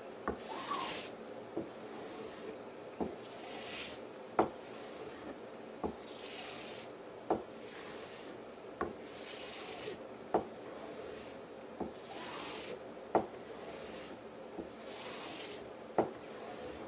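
Machete blade being stropped on a compound-loaded strop board, rubbing strokes of steel over the strop that slick up the edge. A light click of the blade against the board comes about every second and a half.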